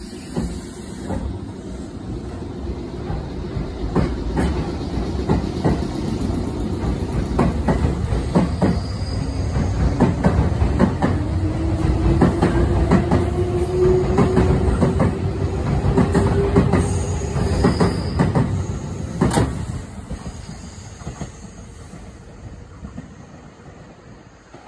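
Nankai 6000 series stainless-steel electric train running close past the platform. Its wheels rumble and clack over the rail joints, with a whine slowly rising in pitch in the middle. A sharp clack comes near the end, then the sound fades as the train moves away.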